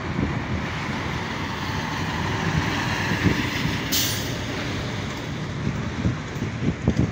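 KamAZ truck with a drawbar trailer driving past close by, its engine and tyre noise building as it nears. About four seconds in there is a short, sharp hiss of air from its brakes, and near the end a few low thumps.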